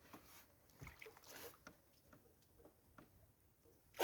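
Near silence, with a few faint scattered clicks and a soft rustle about a second and a half in.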